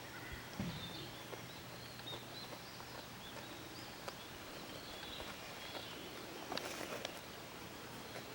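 Outdoor farm ambience with small birds chirping repeatedly in the background. There is a brief rustling noise about six and a half seconds in.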